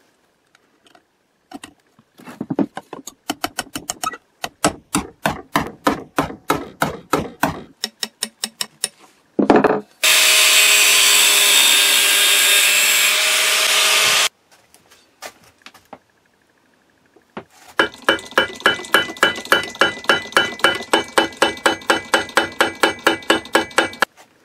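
Metal hammer strikes on a brass pin set through an axe handle, a long run of about two or three blows a second. Then a small angle grinder runs for about four seconds, cutting the pin off, and a faster run of lighter taps follows, about four a second.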